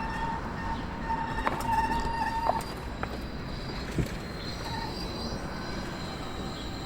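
City street ambience: a steady hum of traffic with a thin high-pitched whine that stops about two and a half seconds in, and a few scattered clicks.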